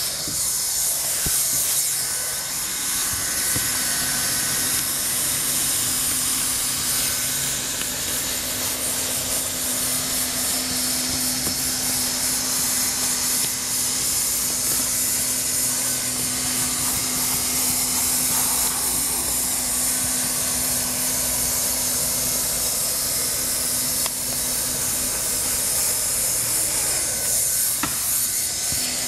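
Hand-held hot-air plastic welder blowing a steady hiss of hot air while heat-welding a TPO roofing membrane overlay, with a faint low hum from its blower.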